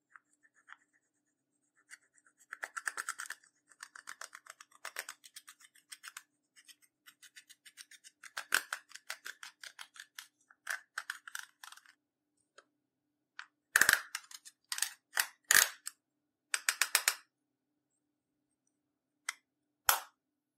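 Clear slime being mixed and squished, giving bursts of rapid little clicks and pops in clusters about a second long, with short pauses between them.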